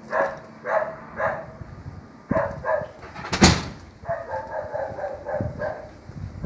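A dog barking over and over, about two barks a second, then a quicker run of barks in the second half. A sharp thump, the loudest sound, comes about halfway through.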